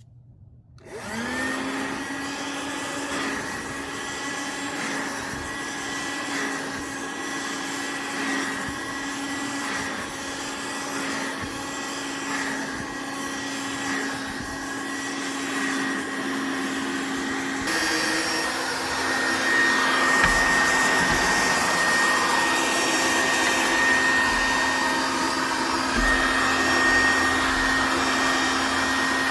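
Dirt Devil Handimate 50 W cordless handheld vacuum switched on about a second in, its motor quickly spinning up to a steady high whine over a rush of air. About two-thirds of the way through, the sound changes abruptly and turns louder and hissier, then runs on steadily.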